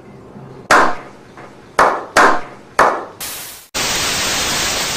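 Four sharp hits, each fading quickly, followed a little before four seconds in by a steady hiss of TV-style static.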